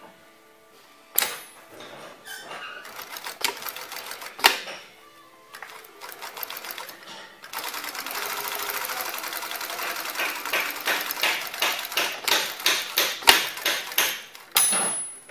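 Off-arm zig-zag walking-foot industrial sewing machine with an Efka DC motor sewing: a few sharp clacks first, then a fast, steady run of stitches from about halfway that slows into separate, distinct stitches near the end.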